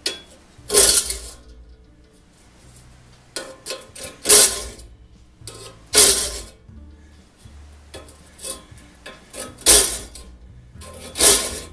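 A hand file rasping in push strokes across the steel teeth of a crosscut frame saw held in a saw vise, sharpening the teeth. There are about five loud strokes, each lasting about a second, with a few lighter ones between.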